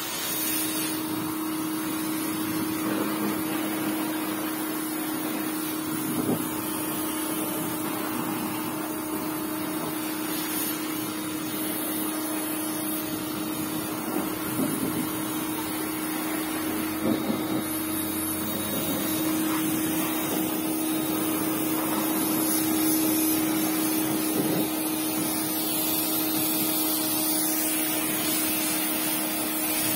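Portable electric pressure washer running: its pump motor hums steadily under the hiss of the water jet spraying down a quad bike, with a few light knocks along the way.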